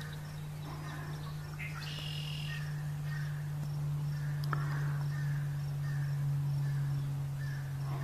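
Outdoor pond ambience: birds calling, with short chirps repeating about once or twice a second and a higher call about two seconds in, over a steady low hum.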